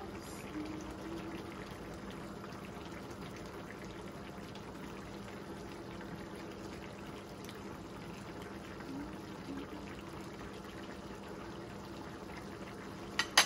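Chicken liver adobo simmering in its sauce in a frying pan, a steady bubbling hiss under a faint low hum, with one sharp click near the end.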